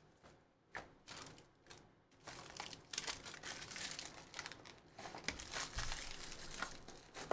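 Foil trading-card pack wrapper crinkling and crackling as it is handled and torn, after a few light ticks of card handling in the first second.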